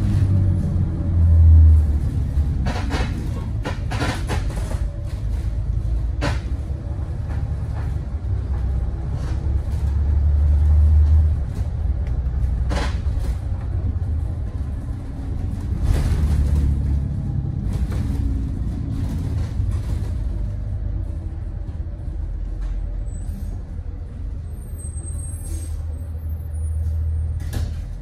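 Ride noise from the rear seats of a 2017 Thomas Saf-T-Liner C2 school bus: a steady low engine drone that swells and eases several times as the bus drives. A few sharp knocks and rattles from the body come through, the clearest about three, four, six and thirteen seconds in.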